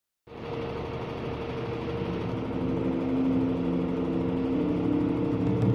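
Diesel engine of a heavy road-train dump truck, a prime mover hauling two dump trailers, running steadily with a low hum, growing a little louder toward the end.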